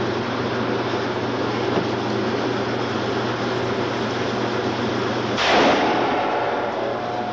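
A single handgun shot about five and a half seconds in, echoing briefly in the range, over a steady background hum and hiss.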